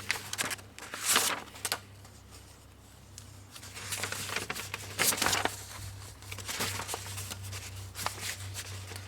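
Handling noises: rustling and scraping with light clicks, with two louder swishes about a second in and about five seconds in, over a steady low hum.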